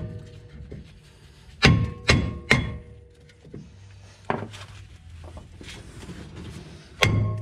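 Hammer blows on a rusted rear brake rotor of a 2010 Ford Ranger, knocking it loose from the hub where it has seized from sitting: sharp metal knocks that ring on, three in quick succession early on, one more in the middle and two near the end.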